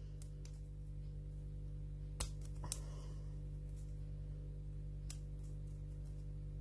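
A few faint, sharp clicks and taps from handling vacuum cleaner parts while hair is cleared from them, over a steady low hum.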